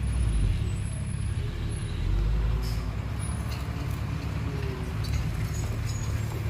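Laden dump truck's diesel engine running as the truck drives, a steady low rumble.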